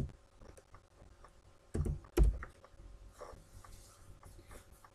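Typing on a computer keyboard: scattered light key clicks, with two louder key strikes about two seconds in.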